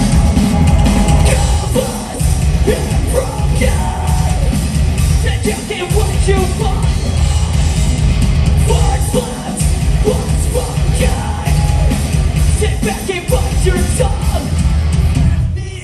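Heavy rock band playing live and loud: distorted guitars, bass and drums, with a shouted vocal over them. The music drops out briefly near the end.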